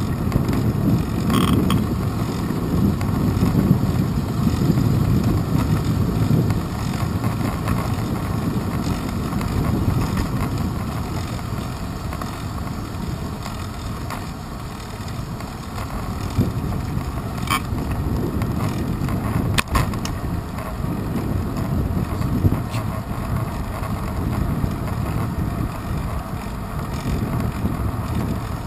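Bicycle rattling and creaking as it rolls over a paved path, carried through a handlebar-mounted GoPro Hero 2, with wind rumbling on the microphone. A few sharp knocks stand out, about a second and a half in and twice more past the middle.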